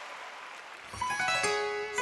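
Audience applause fading out, then about a second in the song's instrumental intro starts: plucked-string notes entering one after another and ringing over each other.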